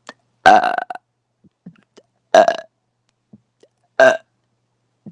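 A woman burping: three loud burps about a second and a half apart, the first the longest.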